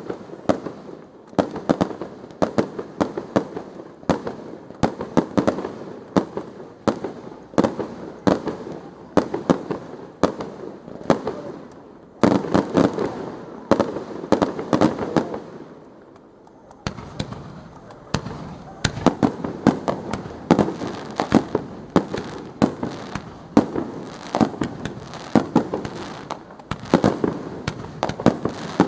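Fireworks display: a rapid, continuous run of shells bursting with sharp bangs and crackling, several a second, each with a rumbling echo. The barrage eases briefly about sixteen seconds in, then picks up again.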